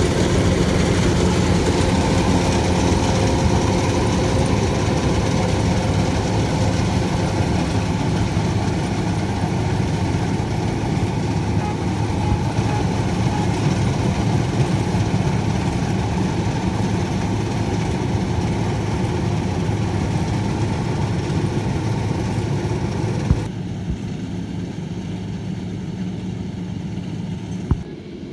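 Rice combine harvester's engine running steadily under load, a continuous mechanical hum. About three-quarters of the way through, the sound drops abruptly to a quieter, duller engine hum.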